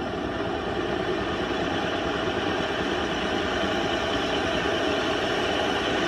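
Dryer vent cleaning equipment running with a steady mechanical drone as lint is blasted out of a clogged dryer vent.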